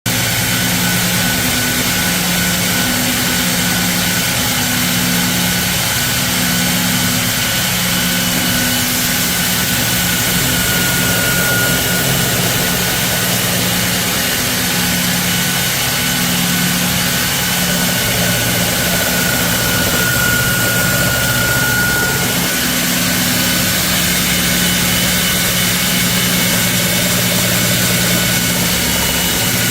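Two-head automatic deburring and belt-grinding machine running: a steady loud motor hum under a dense abrasive hiss, with the low hum pulsing about once a second in the first stretch and a faint whine that swells and fades.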